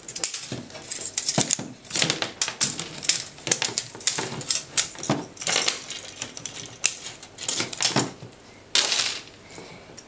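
Hand wire cutters snipping and snapping through a hair dryer's coiled heating-element wires as the heater is cut away from the motor: a fast, irregular run of sharp clicks and snaps, with a short rasping burst near the end.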